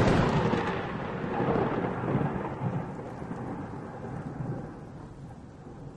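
Thunder: a sudden clap at the start that rolls on and slowly fades over several seconds, with a steady hiss of rain beneath it.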